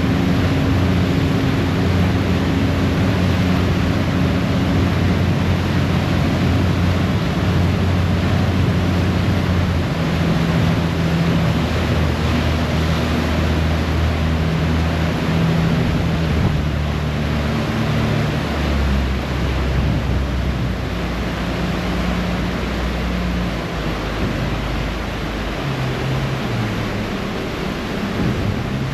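Harbour ferry under way: the steady rush of its churning propeller wake and wind over a low engine drone, whose pitch shifts lower in the second half.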